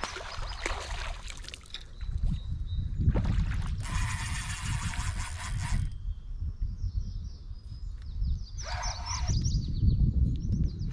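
A fishing reel is worked while a hooked fish is played, in two bursts of busy reel noise a few seconds apart. Wind rumbles on the microphone through much of it.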